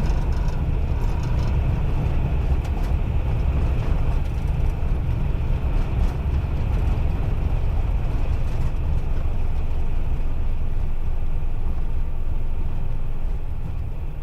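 Airbus A320 landing rollout heard from the cockpit: a steady low rumble of the wheels on the runway together with engine noise as the aircraft decelerates after touchdown. The rumble eases slightly near the end.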